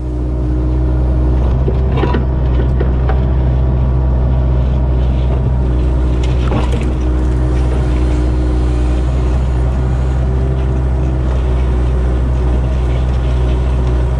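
Kubota KX057-4 excavator's diesel engine running steadily while the hydraulics work the grading bucket, heard close from a camera mounted on the machine. A couple of brief knocks come from the bucket about two seconds in and again about six seconds in.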